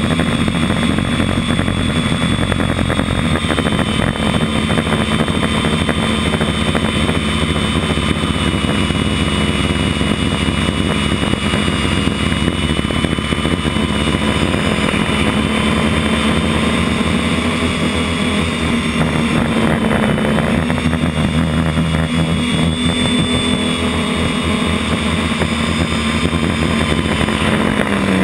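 Motor and propeller of an FPV model aircraft heard from its onboard camera: a steady whine with small rises and falls in pitch over a rushing noise.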